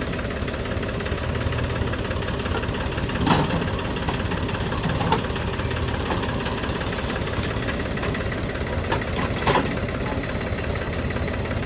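Diesel engine of heavy earth-moving machinery running steadily, with a few sharp knocks about three, five and nine and a half seconds in.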